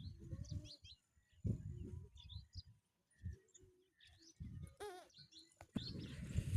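Small birds chirping in short, scattered calls, with low thumps mixed in. About a second before the end a steady hiss sets in.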